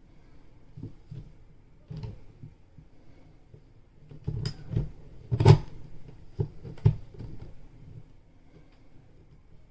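Scattered knocks and clicks of things being handled, a few at first, then a busier run of thuds and clicks about halfway through, the loudest knock about five and a half seconds in.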